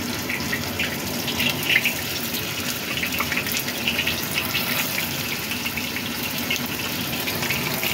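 Hot oil sizzling steadily in a wok as pieces of fish-stuffed tofu (yong tau foo) fry fish-side down, with scattered crackles and pops.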